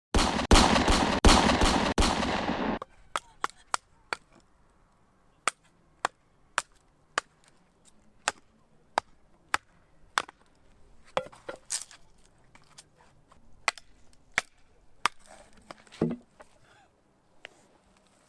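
Firewood being chopped and split for a campfire: a run of sharp knocks of a blade on wood, about one every half second to second. The first three seconds hold a loud rushing noise with several heavy strikes.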